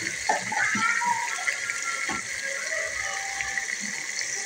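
A steady, water-like rushing hiss, with a few soft knocks.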